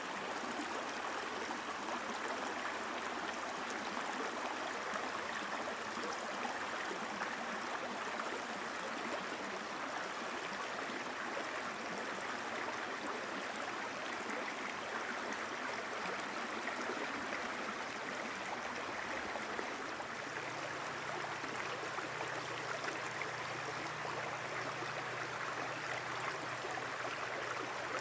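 Steady rushing of flowing water, an even hiss with no breaks. About two-thirds of the way through, a low steady hum joins underneath it and fades near the end.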